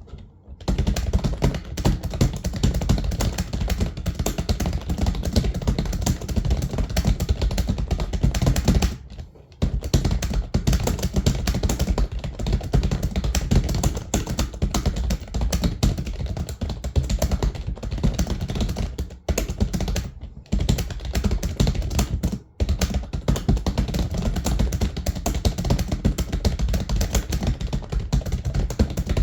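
Fast, continuous typing on a computer keyboard: a dense stream of key clicks, at speed-test pace, with a few brief pauses.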